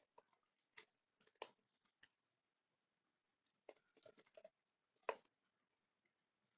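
Faint typing on a computer keyboard: short runs of key clicks with pauses between them, and one louder click about five seconds in.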